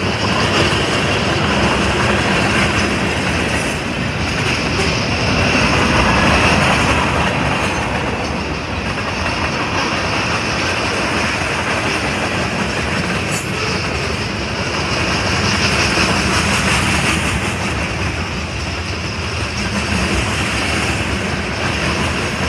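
Freight train's tank cars rolling past: a loud, steady rumble and rattle of steel wheels on the rails, with a clickety-clack from the rail joints.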